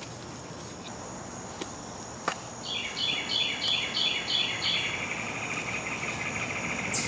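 Insects buzzing steadily at a high pitch. About two and a half seconds in, a series of short chirps starts, about three a second, and runs into a steady trill. A single click comes about two seconds in.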